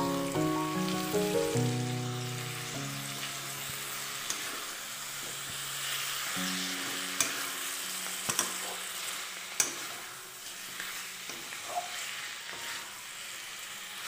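Chicken curry sizzling and frying in an aluminium kadai as it is stirred with a metal spatula, which clicks and scrapes against the pan a few times in the second half. Background music with held notes plays over the first few seconds and comes back briefly about six seconds in.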